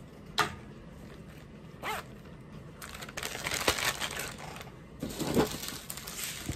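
Thin plastic bags crinkling as they are handled: small bags of diamond-painting drills and a zip-top bag. There is a short sharp crackle about half a second in and another near two seconds, then a dense crinkling rustle over most of the second half.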